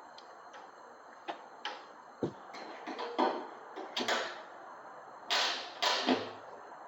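Irregular clicks and knocks of work noise, with short hissing swishes about four seconds in and twice more near the end.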